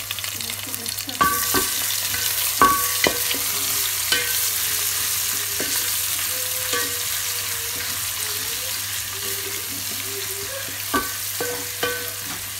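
Grated ginger-garlic, green chilies and browned onions sizzling in hot oil in a steel pot, stirred with a wooden spoon that knocks and scrapes against the pot several times. The sizzle grows louder about a second in.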